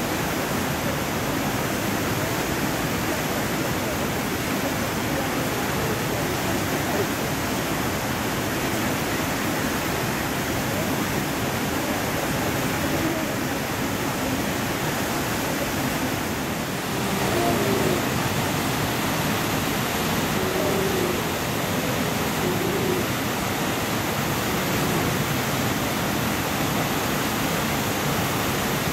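Steady rushing of a fast river running over rapids, an even hiss of water that grows a little louder about halfway through.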